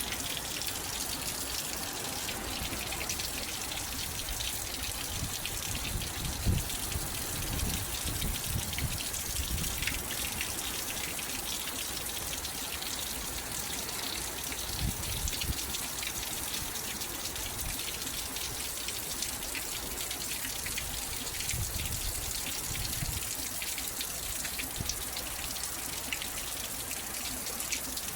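Steady rain falling, a dense patter of drops. Low rumbles come and go a few times.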